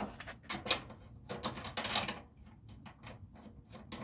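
A string of short clicks, knocks and rustles from small parts and tools being handled.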